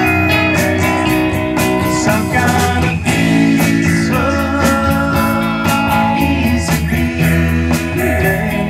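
A live band playing amplified guitar music through PA speakers, with a steady beat.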